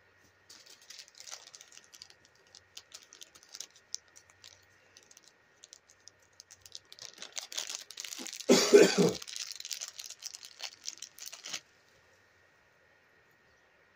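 Light rustling and small clicks of hands handling a doll and its clothes, with a louder short rough burst about eight and a half seconds in.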